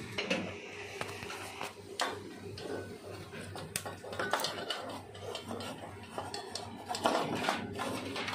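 Irregular clicks, knocks and clatter of circuit boards and a small wire connector being handled and unplugged, over a steady low hum.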